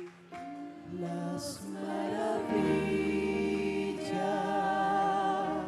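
Spanish Christian worship song sung by a group of voices, holding long notes with vibrato.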